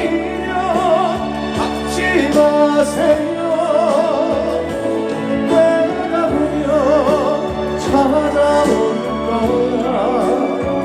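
Live band playing the instrumental interlude of a slow trot ballad: a lead melody with wide vibrato over sustained chords.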